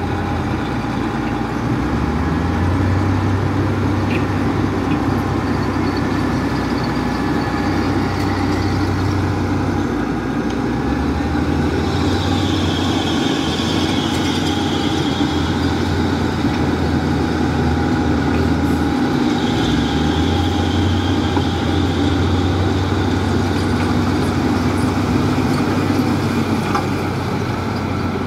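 Heavy diesel earthmoving machinery running steadily. Its deep engine drone strengthens and eases in long stretches, a few times over.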